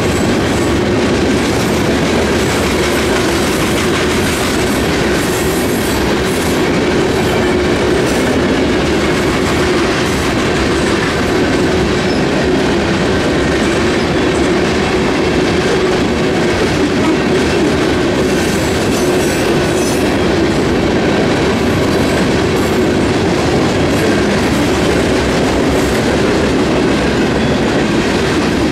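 Union Pacific grain train passing, its freight cars rolling by steadily with a constant rumble and frequent clicks of the wheels over the rail.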